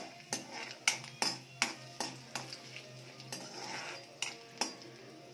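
Metal spoon clinking and scraping against a kadhai while stirring whole spices in hot oil, with irregular strikes about twice a second.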